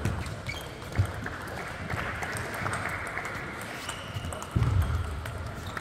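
Table tennis rally: the celluloid ball clicking off the rackets and table in a reverberant hall, with a few heavier thuds of the players' shoes on the court floor.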